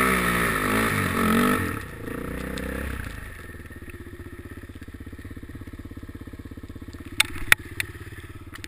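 Suzuki LT-Z400 quad's single-cylinder engine revving up and down repeatedly, then easing off about two seconds in and settling to a steady idle by about three seconds in. A few sharp clicks near the end.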